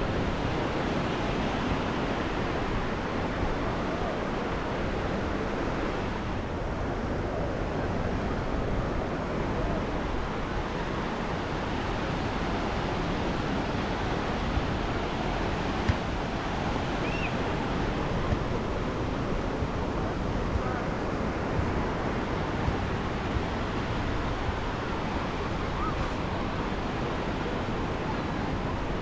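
Small ocean waves breaking and washing up over the sand in a steady surf wash.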